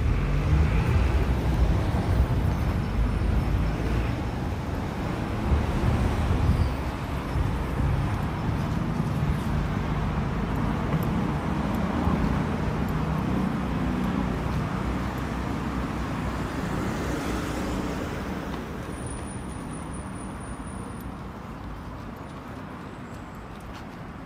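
Road traffic: a motor vehicle's low rumble close by, loudest in the first several seconds and then fading away gradually.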